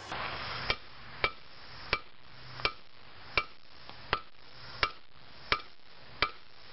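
Hand hammer striking a red-hot steel bar on an anvil in an even rhythm, about nine blows, each a sharp clang with a brief ring. These are near-side edge hammer blows, squeezing the bar down at the anvil's edge.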